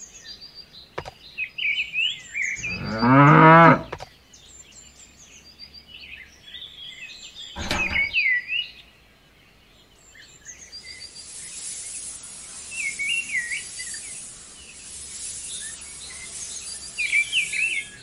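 Birds chirping, with a single cow moo lasting about a second, three seconds in, and a sharp click near eight seconds. From about ten seconds in, a steady hiss of fine sand pouring out of a bowl.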